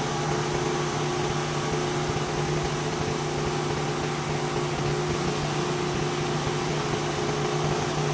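Pressure washer running steadily, a constant machine hum under the hiss of spraying water.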